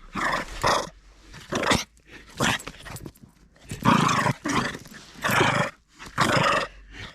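Dog growling and making rough-play noises in repeated short, loud bursts.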